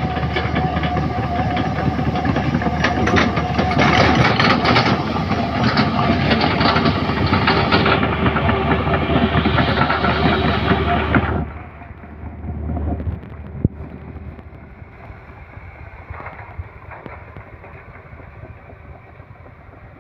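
Heavy earthmoving machinery running loud, with steady engine tones and repeated metallic clanking and rattling; about eleven seconds in the noise drops suddenly to a much quieter low rumble, with one sharp knock shortly after.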